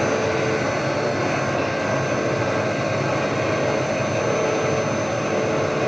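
Haas VF-3 vertical machining center running, a steady whirring machine noise with a faint high steady whine over it.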